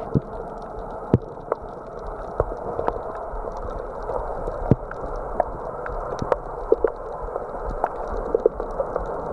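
Gurgling, bubbling sound with many irregular sharp pops, muffled and dull.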